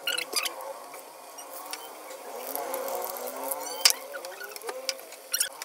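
Battered whole raw-banana pakoras deep-frying in hot oil: a steady sizzle with sharp crackles and pops, growing a little louder partway through as more pieces go into the oil.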